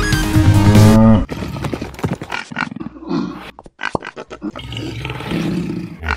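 Music that cuts off suddenly about a second in, followed by uneven animal-like roaring and growling, the monster roar effects of a toy kaiju film.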